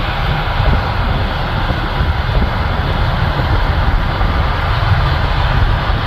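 John Deere 8R tractor running steadily under load, powering the grain cart's unloading auger as corn pours into a semi grain trailer: a continuous engine-and-machinery rumble.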